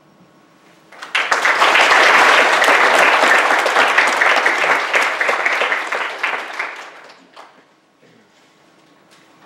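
Congregation applauding: many hands clapping together, starting about a second in and dying away about seven seconds in.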